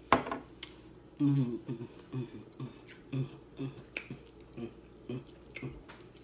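A sharp click, then a woman mumbling low, indistinct words in short broken phrases while eating.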